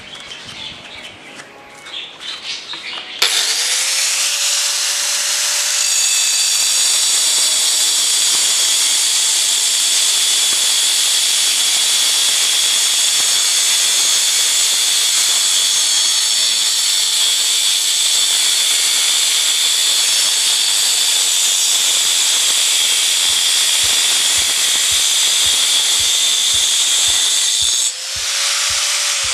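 Bosch GWS 7-115 angle grinder with a diamond disc switched on about three seconds in, spinning up and then cutting a groove into a concrete slab with a loud, steady, high grinding whine. Near the end the disc is lifted out of the cut and the level drops.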